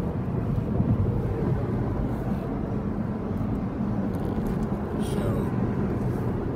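Steady low rumble of road and engine noise inside a car's cabin at freeway speed.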